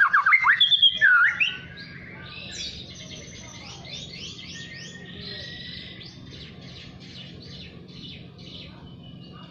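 Young white-rumped shama practising its song: a loud burst of quick swooping whistles for the first second and a half, then a softer run of short, repeated rising notes at about three a second. This is a juvenile still learning the sharp 'nembak' volley of the adult song.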